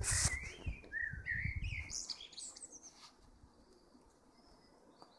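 A small bird singing a quick warbling phrase of rising and falling notes for about three seconds, over a low rumble that dies away about two seconds in.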